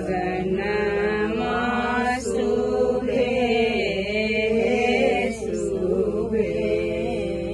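Voices chanting a ritual wedding song in long, wavering held notes, in several phrases of a few seconds each, over a steady low hum.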